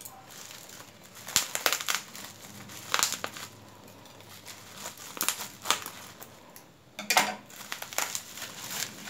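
Plastic bubble wrap crinkling in irregular bursts as it is pulled and cut off a bundle of metal socket wrenches.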